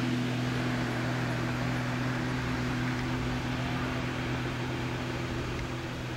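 Jet ski engine running at speed, a steady hum that slowly fades as the craft moves away.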